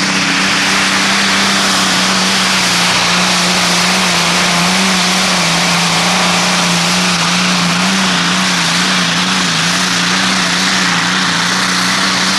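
Supercharged Allison V-1710 V12 aircraft engine in a modified pulling tractor, running flat out under load through a pull. It is a loud, steady drone whose pitch wavers slightly.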